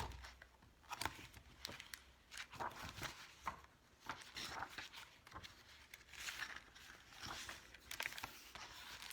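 Soft, irregular rustles and light clicks of a paperback picture book being handled and its pages turned.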